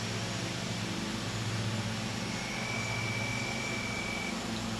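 Steady low mechanical hum over an even background noise, with a faint thin high tone for about two seconds in the middle.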